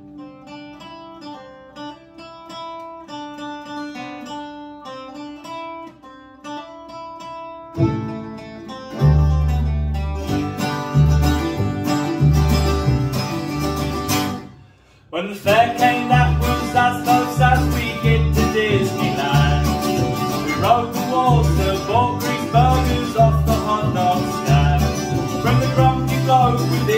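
Acoustic folk band of mandolin, acoustic guitar and upright double bass playing an instrumental passage. A soft, sparse melody opens it. The full band comes in about eight seconds in with a plucked bass beat, breaks off briefly near fifteen seconds, then plays on fuller.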